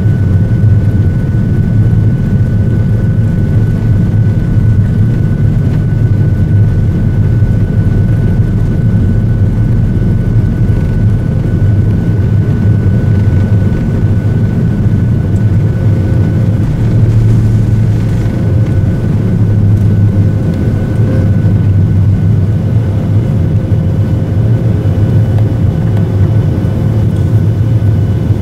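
Steady loud low rumble of a vehicle driving at highway speed, with a faint thin whine above it.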